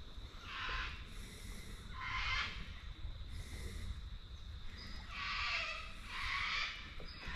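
Kayak paddle strokes, a series of swishes through the water at uneven intervals of one to two seconds.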